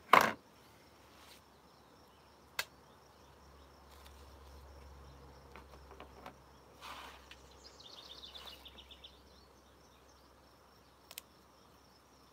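A sharp knock at the start and a lighter click a couple of seconds later, from kitchen items being handled and set down. Soft handling sounds follow, with a short chirping trill about eight seconds in.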